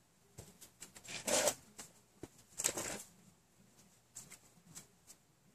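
A charred cotton T-shirt (char cloth) rustling as hands unfold and smooth it out, in short irregular bursts.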